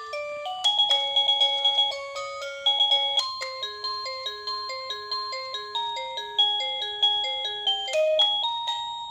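Wireless doorbell chime playing one of its built-in electronic melody ringtones: a simple tune of clean, beeping notes stepping up and down, with quick repeated notes.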